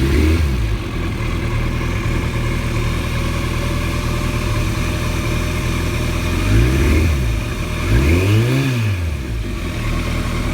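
Car engine running at a rough idle, its throttle blipped briefly at the start and twice more in the second half, each rev rising and falling back to idle.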